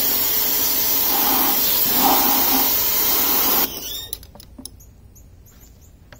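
Pressure washer jet blasting water through the swivel base of a removed kitchen faucet, a loud steady hiss that cuts off suddenly about three and a half seconds in. After that come faint clicks and knocks of the faucet being handled in a plastic bucket.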